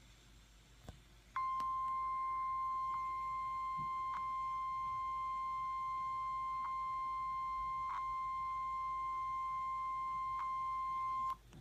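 NOAA Weather Radio warning alarm tone: one steady high beep held for about ten seconds, starting about a second and a half in and cutting off sharply, over faint radio static with a few clicks. It is the alert signal that precedes a warning broadcast.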